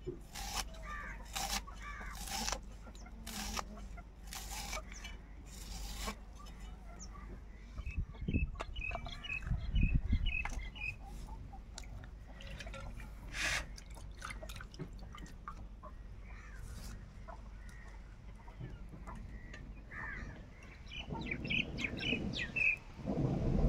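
An onion being sliced against an iron floor blade, a run of short crisp cuts for the first few seconds. Small birds chirp twice, and near the end a stone pounder starts thudding heavily and repeatedly on the floor.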